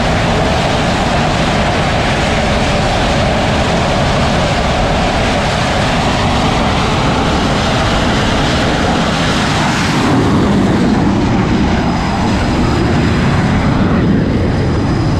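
A Rafale fighter's twin M88 jet engines running at full power on a carrier's steam catapult. About ten seconds in the catapult fires: the high-pitched jet noise drops away and a lower rush swells as the jet is flung off the deck.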